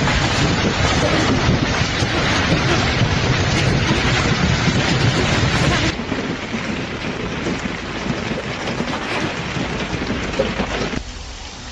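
Heavy storm downpour pelting surfaces, a loud dense hiss. It steps down a little about six seconds in and drops further near the end.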